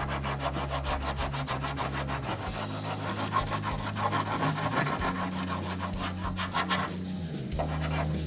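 Coarse sandpaper on a hand sanding block rasping back and forth over cured fiberglass gel coat, in quick, even strokes, levelling the repair edges and roughening the surface so the next layer will stick. The strokes stop about seven seconds in, with a brief few more near the end.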